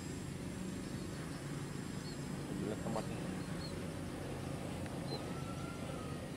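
Motor and propeller of a PZL-104 Wilga RC model plane in flight, a steady low drone, with a few short bird chirps over it.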